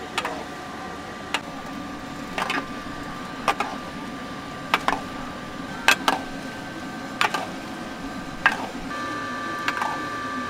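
Sharp knocks repeating at an even pace, about one every second and a bit, some of them doubled, over a steady high hum.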